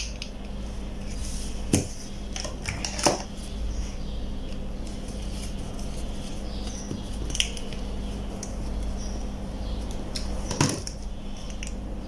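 A few sharp clicks and small knocks from handling a plastic car remote key case: its halves pressed together and its case screw driven in on a metal workbench. There are four spread-out clicks, the loudest about three seconds in, over a steady low hum.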